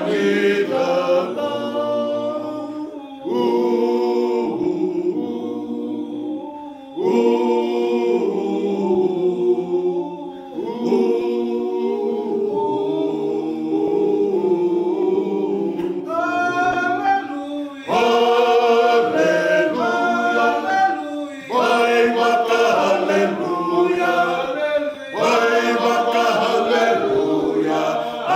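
A group of men singing a Fijian hymn a cappella, in sung phrases separated by short pauses.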